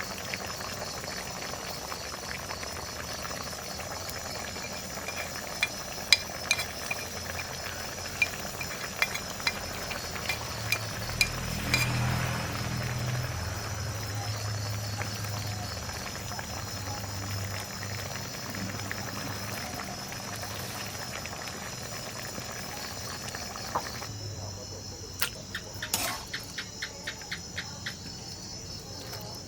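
Food cooking in a pot, with scattered clinks of a utensil, over a steady high drone of crickets.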